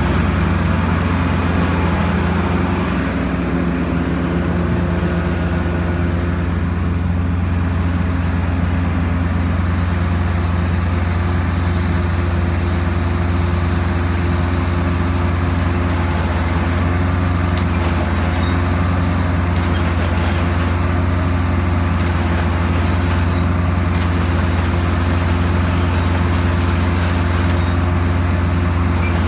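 John Deere cotton picker's diesel engine running at a steady speed: a constant low drone whose pitch holds steady throughout.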